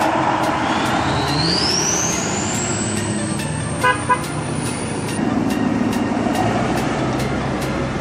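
Trucks and traffic running by, with two short vehicle-horn toots close together about four seconds in. A high whine rises steadily in pitch over about four seconds and cuts off suddenly.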